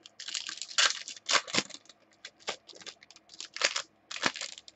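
Baseball card packs being handled: irregular crinkling and rustling of the pack wrappers, with quick sharp scrapes as cards are slid and flipped.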